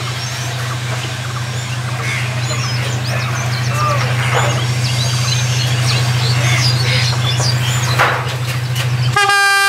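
Diesel locomotive running with a steady low drone that slowly grows louder as the train approaches, with birds chirping over it. Near the end the locomotive's horn starts a long blast.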